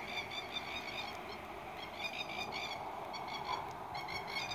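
Plovers (masked lapwings) calling in three bursts of rapid, harsh chattering, spaced a couple of seconds apart, over a faint steady hiss.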